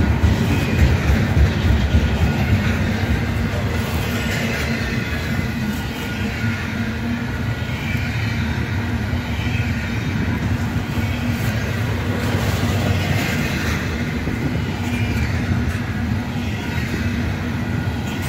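Freight train of container-carrying well cars rolling past at close range: a steady rumble of steel wheels on the rails, with a higher rushing noise that swells and fades every few seconds.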